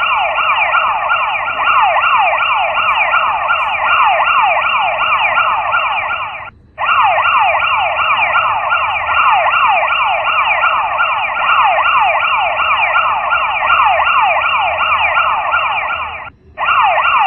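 Mobile phone emergency alert tone sounding: a loud, siren-like stream of rapid falling sweeps, several a second, broken by two brief pauses, one about six and a half seconds in and one near the end.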